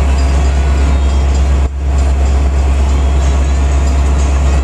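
Diesel-hauled Metra bilevel commuter train standing at the platform: a loud, steady low rumble that dips briefly a little under two seconds in.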